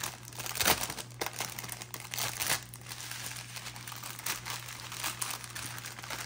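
Clear plastic bags of diamond-painting drills being handled and folded, crinkling in irregular bursts with sharp crackles, over a steady low hum.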